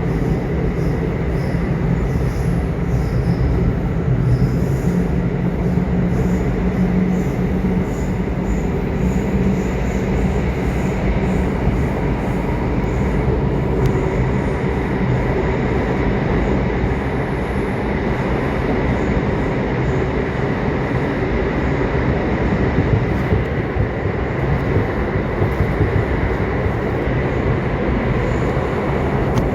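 Subway train running: a steady rumble of wheels on the track, with faint thin high tones over it.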